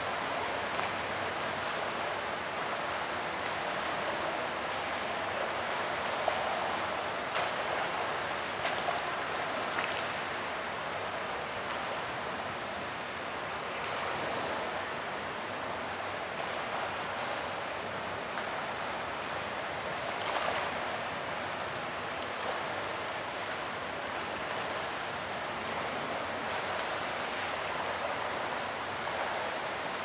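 Fountain water splashing and rushing steadily, with a few brief louder splashes in the first third and again near the middle.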